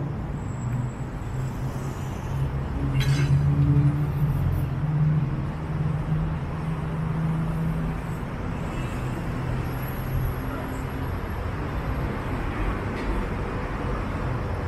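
Road traffic: car engines running and passing on the street beside the pavement, a steady low rumble that swells around three to four seconds in, with a short click about three seconds in.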